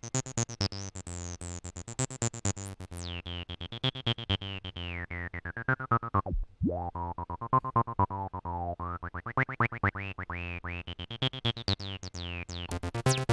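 Acid bassline on a 303-style synthesizer in square-wave mode: rapid, evenly repeated notes with a resonant filter that sweeps down from bright, almost closes about six seconds in, then opens and rises again.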